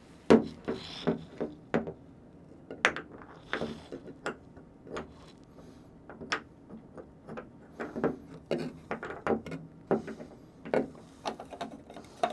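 Irregular small clicks, taps and knocks of a black plastic tub drain shoe fitting being handled and positioned against the tub's drain outlet.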